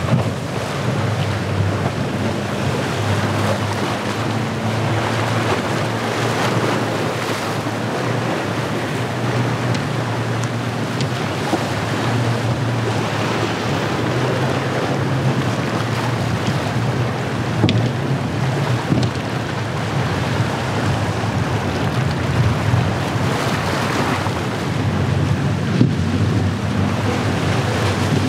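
Outboard-powered bowrider (Starcraft SVX 191, single Yamaha 115) running through rough inlet chop, its engine droning under the steady rush and splash of breaking waves and spray, with wind buffeting the microphone.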